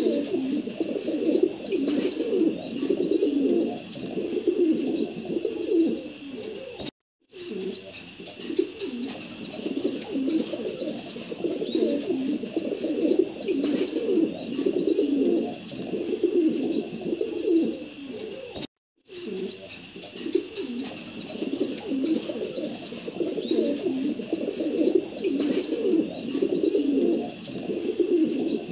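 Many pigeons cooing at once in a dense, continuous chorus, with high chirping calls above it. The sound cuts out completely twice, briefly each time.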